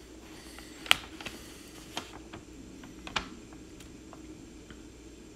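Paper instruction manual being handled and unfolded: a few crisp paper clicks and rustles, the sharpest about a second in, with others near two and three seconds.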